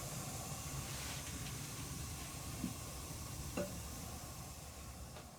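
Quiet, steady hiss of room tone and recording noise, with two faint clicks about two and a half and three and a half seconds in.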